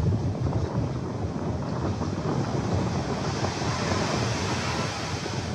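Wind buffeting the microphone over the steady wash of small waves breaking on a sandy beach.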